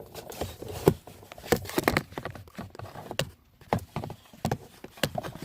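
Irregular clicks and knocks from hands working at the parts and wiring plugs around a car's steering wheel.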